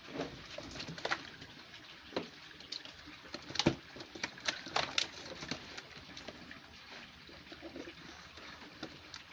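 Water splashing in irregular sharp slaps as catfish broodstock are handled in a holding tank, over a steady background of running water.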